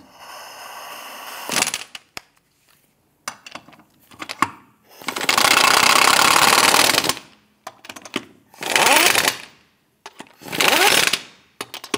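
A 1/2-inch pneumatic impact wrench runs wheel lug nuts down in several separate bursts. The longest burst lasts about two seconds near the middle, and two shorter ones follow. Its pitch rises as the tool spins up.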